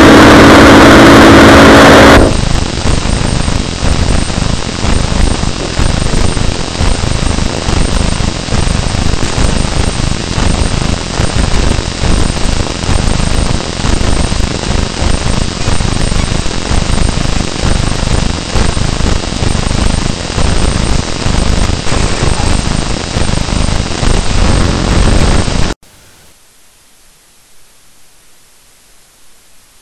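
Harsh noise music: loud distorted static with several held tones over it, changing about two seconds in to a denser crackling noise with a heavy low end. It cuts off suddenly near the end, leaving only faint hiss.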